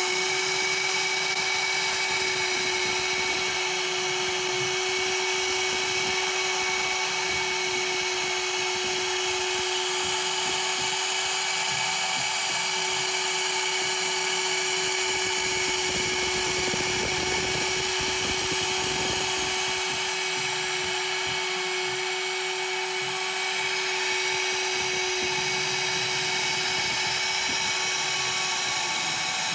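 CNC router spindle running with a steady high whine while a straight-flute end mill cuts pockets in beech wood. The cutting noise turns rougher for a few seconds past the middle.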